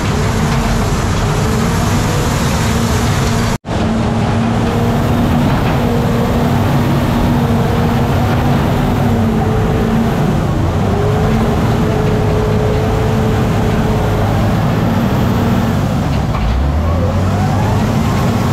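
Crawler dozer's diesel engine running loud and steady, heard from inside the screened cab, with a steady tone running through it. The sound drops out for an instant about three and a half seconds in, and the engine note rises near the end.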